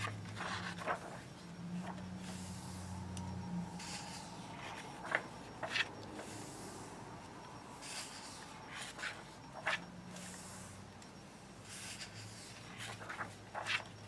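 Paper pages of a paperback coloring book being turned and smoothed flat by hand: soft rustling and sliding with a few short ticks, over a faint steady low hum.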